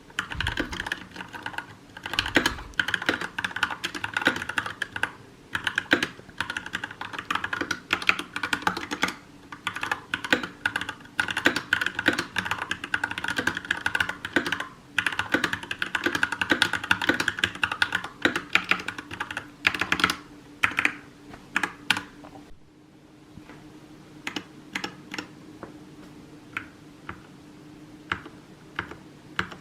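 Mechanical gaming keyboard with red linear switches being typed on: a fast, continuous run of keystrokes that thins to slower, separate key presses in the last several seconds.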